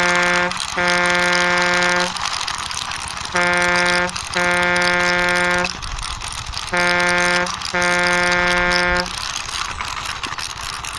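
Electronic horn beeps in a repeating pattern: a short beep then a longer one, three times over, each at one steady pitch. A continuous rushing noise runs underneath.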